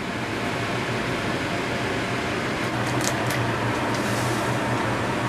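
Steady hum of a running fan, with a few light plastic-bag crinkles about three seconds in.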